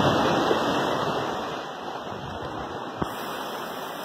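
Sea surf breaking and washing over shore rocks, loudest in the first second and a half and then easing off. A single sharp knock about three seconds in.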